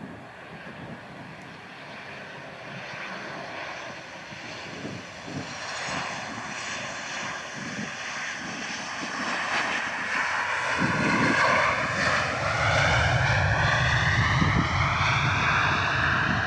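Boeing 737-800's CFM56-7B turbofan engines on landing, the jet noise growing louder as the aircraft comes in and touches down on a wet runway. About ten seconds in, a deep rumble joins and the engine whine climbs in pitch as the engines spool up after touchdown, typical of reverse thrust.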